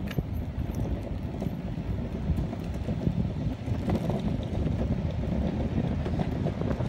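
Meepo NLS electric skateboard's wheels rolling over paved walkway: a steady low rumble with a few faint ticks, mixed with wind on the microphone.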